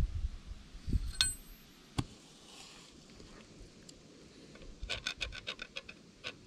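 Metal parts of a diesel cylinder head being handled: a few short knocks and a brief metallic ring as the exhaust valve is worked in its guide. Near the end, rapid scraping clicks as a metal pick is run over the pitted, damaged exhaust valve seat.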